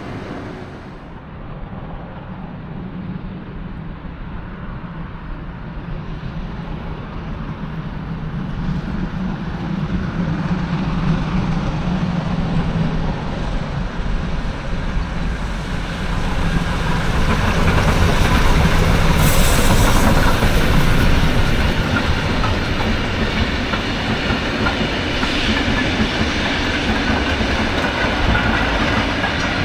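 A train passing on rails, growing louder as it approaches, loudest about two-thirds of the way through, then running on steadily.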